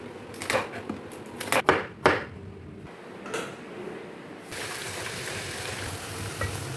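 A knife chopping cabbage on a wooden cutting board, a few sharp, irregular knocks. From about four and a half seconds in, a steady sizzle of the cabbage stir-frying in a pan.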